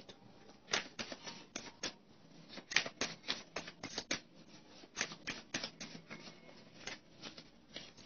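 Tarot cards being shuffled by hand: a run of irregular, sharp card snaps and slaps, a few each second.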